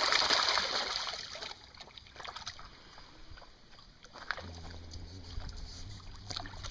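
A dog thrashing in a shallow creek pool sends up a burst of splashing water for about the first second and a half, then lighter sloshes and drips. A low steady hum comes in about four and a half seconds in.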